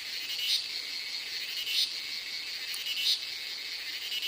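Evening chorus of crickets: a steady high-pitched trill that swells into a louder pulse about every second and a quarter.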